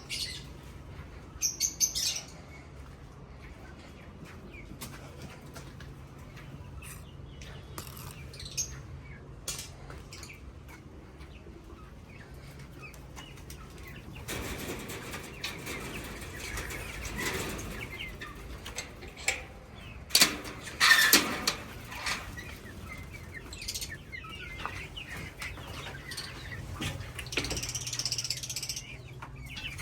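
Small parrots in a colony cage chirping and flapping their wings, with short high chirps and a busy flurry of wingbeats and knocks through the middle.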